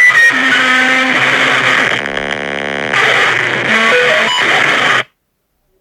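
A loud, chaotic jumble of overlapping comedic sound effects and music, with guitar-like tones, that cuts off suddenly about five seconds in.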